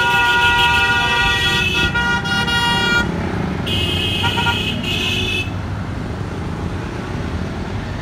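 Vehicle horns honking in busy road traffic. One long horn blast lasts about three seconds, then a shorter, higher-pitched blast follows about a second later. A steady rumble of engines and road noise runs underneath.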